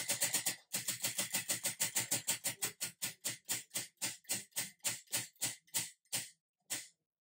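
Spinning prize wheel's pointer clicking against the pegs on its rim, rapid ticks at first that slow steadily to a few a second as the wheel coasts to a stop, the last clicks near the end.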